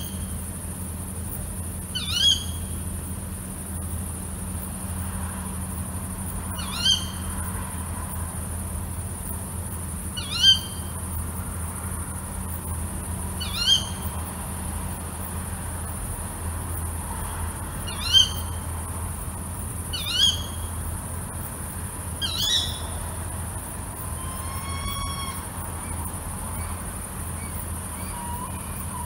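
Female tawny owl giving its sharp 'ke-wick' contact call seven times, a short high shriek every few seconds at uneven spacing.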